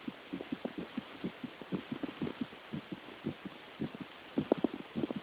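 A girl's heart beating fast, heard through a stethoscope: short lub-dub thumps following each other in quick succession over a steady hiss.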